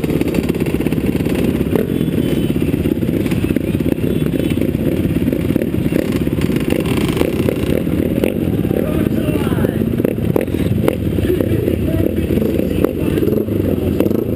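Flat-track racing motorcycles running on the track, the nearest engine loud and close with a fast, uneven low chugging.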